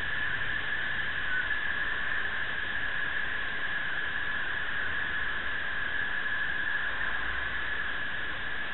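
Steady hiss with a faint whistling tone in it, picked up by a bicycle-mounted video recorder's microphone while riding in traffic.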